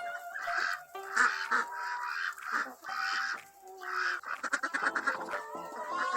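Ducks quacking, a run of loud calls about half a second apart.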